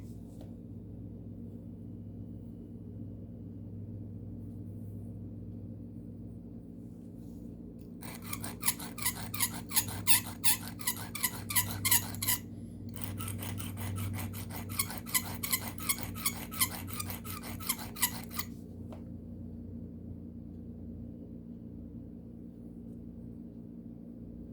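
Carbon steel pocket knife blade being stroked across a sharpening stone in two runs of rhythmic scraping strokes, starting about a third of the way in and stopping about three quarters of the way through, while a burr is raised on the edge. A steady low hum runs underneath.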